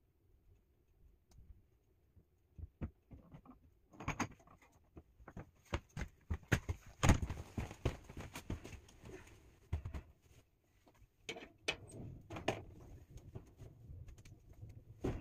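Irregular clicks, knocks and rustling from a person handling things out of sight, starting about four seconds in and loudest about seven seconds in.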